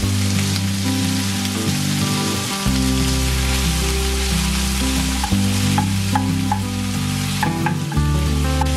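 Food sizzling and frying in a pan, an even crackling hiss, under background music with slow, held low notes.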